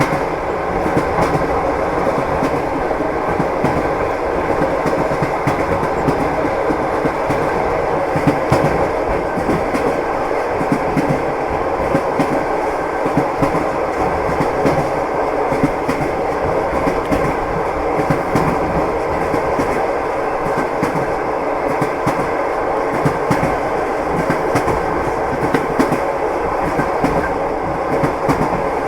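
Train wheels clattering over rail joints with a steady rumble, as heard riding in a railway carriage.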